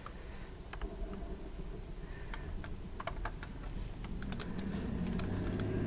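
Scattered light clicks and taps as a stretched canvas is handled and shifted on plastic sheeting, with a low hum swelling in over the last couple of seconds.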